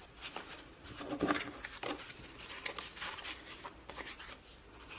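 Paper sticker sheets rustling and sliding against each other as they are handled and shuffled, with a string of light, scattered rustles and taps.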